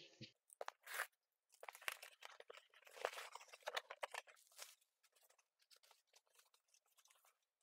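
Faint, irregular crinkling and crackling of packaging as a cardboard box is opened and a part is drawn out of bubble wrap and a plastic wrapping sleeve, stopping a little past halfway.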